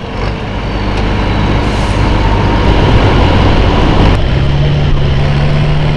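International Harvester 1066 pulling tractor's diesel engine running loud and rough, then settling about four seconds in to a steadier, lower drone.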